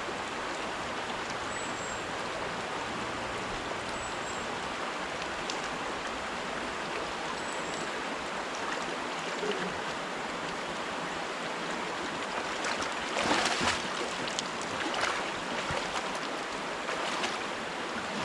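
Mountain river rushing steadily over rocks, with a short burst of louder sharp noises about two-thirds of the way through.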